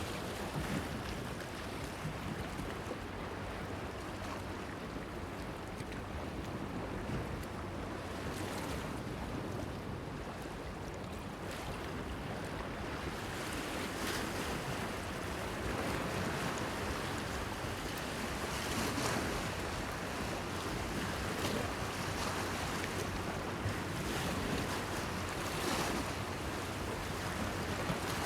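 Sea waves washing and splashing against a pier, the splashes coming more often in the second half, with wind on the microphone and a faint steady low hum underneath.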